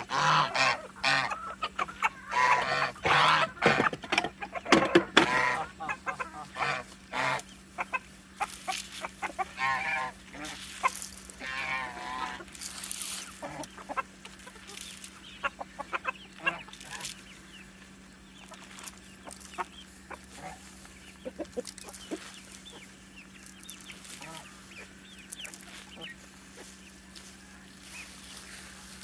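A flock of chickens clucking and squawking, many overlapping calls at first, thinning out and growing quieter about halfway through.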